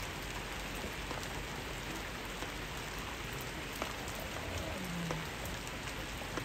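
A steady, even hiss with a few faint clicks, and faint distant voices about five seconds in.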